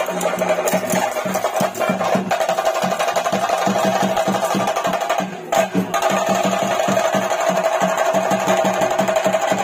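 Ritual chenda drums beaten in a fast, continuous roll of even strokes, with a steady ringing tone held underneath, as played for a Theyyam's emergence. The playing drops off briefly about five seconds in.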